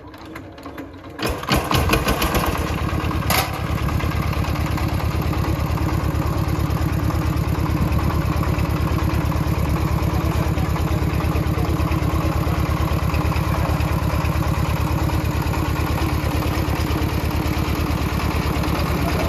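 Engine of a homemade bandsaw sawmill starting about a second in, with a few knocks as it catches, then running steadily with an even, pulsing beat.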